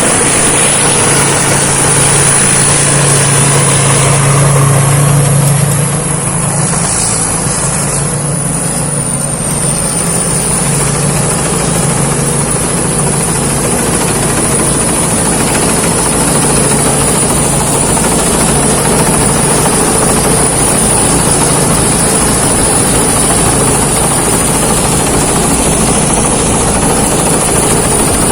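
Thai Seng Yont rice combine harvester running in the field: its engine and threshing machinery make a loud, steady drone with a thin high whine above it. The low engine hum eases slightly about six seconds in.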